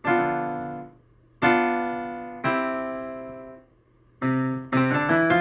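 AODSK S-200 digital piano playing its "bright piano" voice: three chords struck one after another, each left to ring and fade, then a quick run of notes near the end.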